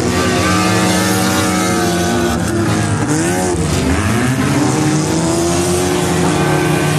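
Several demolition-derby cars' engines running at once, revving up and down as the cars drive around a dirt arena, with one engine's pitch swinging up and down about halfway through.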